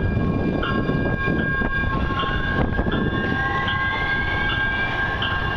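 Light-rail train pulling away from a station. Its electric drive whines, and from about halfway the whine rises steadily in pitch as the train gathers speed. A repeated ringing tone sounds on and off over the rolling noise.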